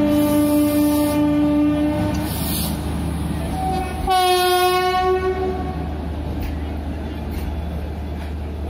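Indian Railways locomotive horns: a long steady blast that stops about two seconds in, then a second, higher and harsher blast of about a second near the middle, over a steady low rumble.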